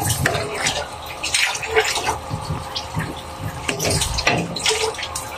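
Metal spoon stirring a saucy chicken and vegetable stew in a metal pan: wet sloshing, with irregular clinks and scrapes of the spoon against the pan.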